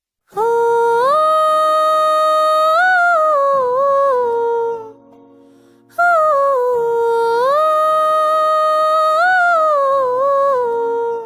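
A voice humming a slow melody in two matching phrases, with long held notes and small turns, and a brief pause between the phrases.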